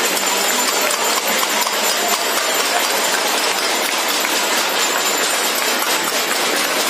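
Many people on the surrounding balconies clapping and banging metal plates and utensils: a dense, continuous clatter with no break.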